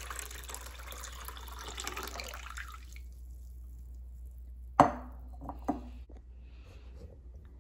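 Water poured from a glass bowl into a small glass bowl, splashing until it stops abruptly about three seconds in. Near five seconds a sharp knock with a short glassy ring as the glass bowl is set down on the stone counter, and a lighter knock just after.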